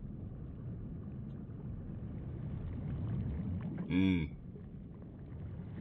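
Low, steady rumbling from the anime episode's soundtrack, building slightly, with one short pitched sound about four seconds in.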